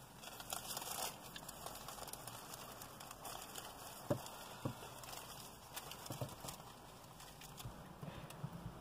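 Faint rustling and crinkling, with a few light clicks, the sharpest about four seconds in.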